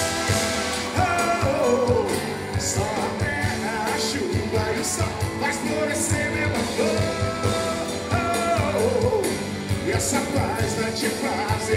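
Live sertanejo band music: sung vocal melody over electric and acoustic guitars, bass and a steady drum beat.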